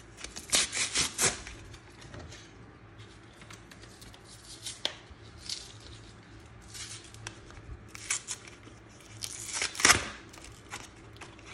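Cardboard and plastic card packaging being torn open and crinkled by hand. A quick run of ripping strokes comes about half a second in, then scattered rustles, then the loudest rip a little before the end.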